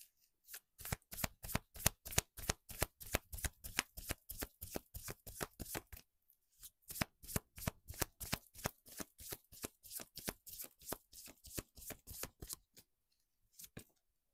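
A deck of tarot cards being shuffled by hand: quick card-on-card flicks at about five or six a second, in two runs of roughly five seconds each with a short break between.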